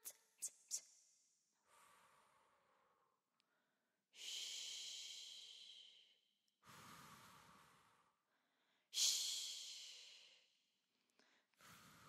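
A singer's breaths close to a studio microphone: several slow breaths with no voice in them, the two loudest about a third and three quarters of the way in, each fading out over a second or so, with a few small mouth clicks near the start.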